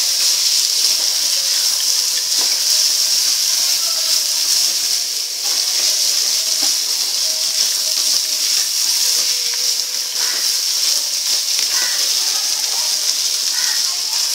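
Black peas and onion-tomato masala sizzling in hot oil in a kadhai while being stirred with a plastic spatula: a steady high hiss throughout.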